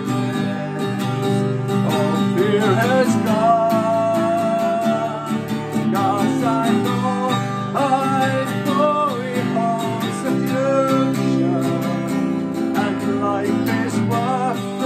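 A man singing a hymn while strumming an acoustic guitar in a steady rhythm.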